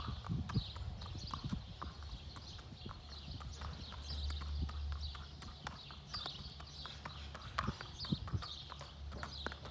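A horse's hooves clip-clopping on asphalt as it is led at a walk, a steady run of light hoof strikes.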